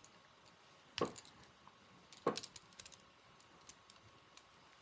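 Hands working silk tying thread at a fly-tying vise: two short, sharp scraping sounds, each falling in pitch, about a second in and a little over two seconds in, followed by a few faint clicks.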